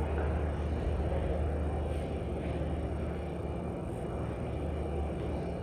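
Steady low hum and rumble of background room noise, with no distinct events.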